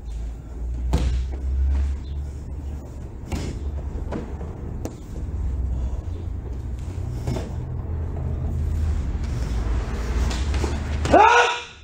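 Karate kata: sharp snaps of the gi and the feet striking the mat, several spaced seconds apart over a steady low hum, then near the end one short, loud kiai shout.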